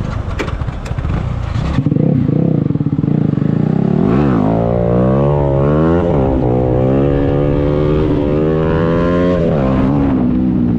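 Bajaj Pulsar AS200 single-cylinder engine running at the line, then launching hard about two seconds in and accelerating flat out. The engine note rises steadily through the gears, dropping sharply at upshifts about four seconds in and again near the end.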